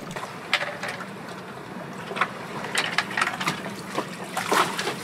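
Scattered clicks and knocks of a plastic SeaFrogs underwater camera housing being handled after its dunk-test for leaks, over a faint steady low hum.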